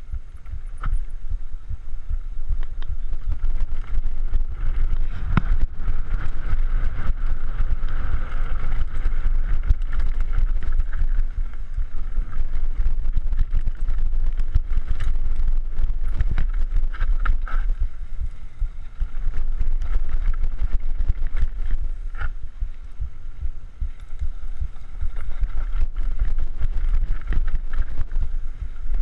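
Mountain bike descending a rough dirt trail, picked up by a camera on the rider: heavy wind buffeting on the microphone and a constant low rumble, with rattles and knocks from the bike over bumps. A steady mid-pitched whine comes and goes, loudest a few seconds in.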